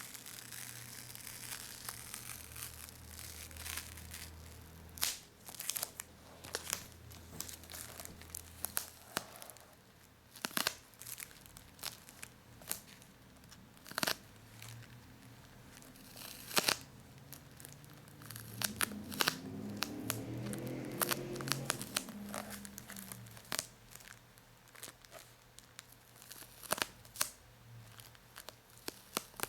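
Sticky paper and plastic being peeled up close, with a string of crackles and sharp snaps as it pulls away, and a longer, denser peel about two-thirds of the way through.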